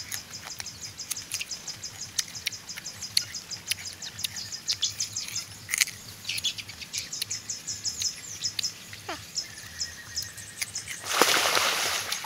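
Birds chirping in rapid, repeated high notes, over scattered crisp crunching clicks of someone chewing raw young mango. Near the end a louder rushing, scraping noise lasts about a second.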